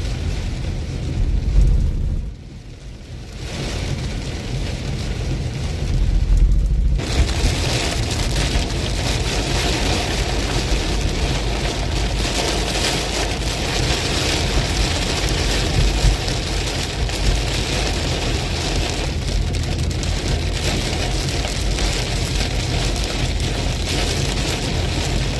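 Heavy rain in a strong storm wind, with wind buffeting the microphone as a low rumble. The sound drops briefly about two seconds in, and the rain hiss grows fuller about seven seconds in.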